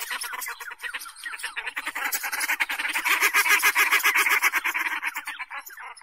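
Egyptian goose giving a long, fast run of harsh honking calls that fades out near the end.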